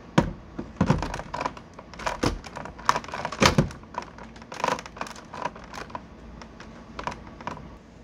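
A string of irregular sharp clicks and knocks with light rustling, the handling of the emptied vacuum cleaner's dust bin and parts while the vacuum motor is off.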